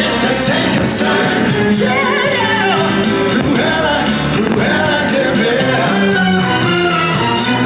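A fireworks show soundtrack playing loudly: a song with a voice singing over the music.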